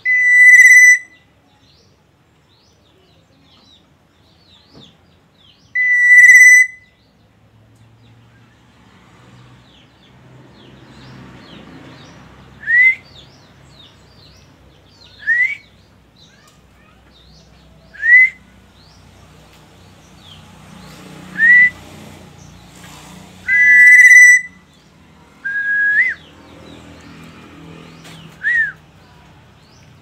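Black-naped oriole giving clear, fluty whistles. There are held notes at the start and about six seconds in, then from about twelve seconds a run of short upward-slurred whistles every two to three seconds, with a couple of longer held notes among them.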